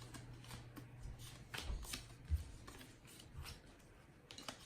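Baseball cards being flipped through by hand: scattered light flicks and rustles of card stock, the loudest a couple of seconds in.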